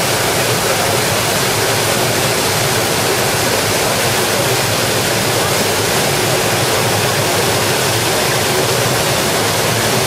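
Waterfall plunging through a narrow rock gorge: a loud, steady rush of falling white water.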